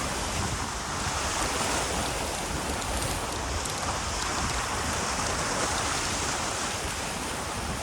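Steady wind buffeting the microphone over the continuous wash of ocean surf.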